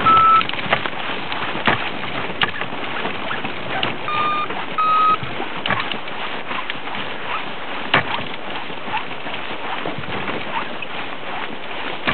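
Steady rushing noise on a microphone fixed to the hang glider's control frame, with scattered clicks and knocks from the frame. About four seconds in come two short electronic beeps, the second slightly higher.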